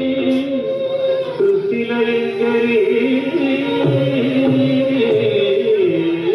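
South Indian classical dance music played over loudspeakers: a melody moving in long held notes that step and slide between pitches.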